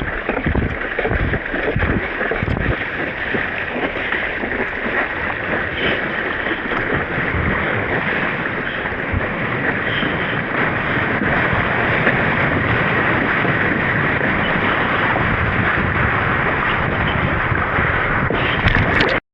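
Steady rushing of wind and water on the microphone, with no clear tones or separate events.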